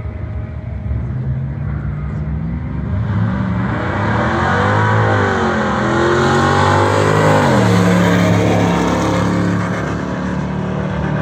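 Two drag cars running at full throttle down the strip, one a cammed, bolt-on LT1 5.7-litre V8 fourth-generation Camaro Z28 on a 150-shot of nitrous. Their engine notes climb and step down at gear changes. The sound grows louder from about three seconds in as the cars come past, then eases slightly near the end.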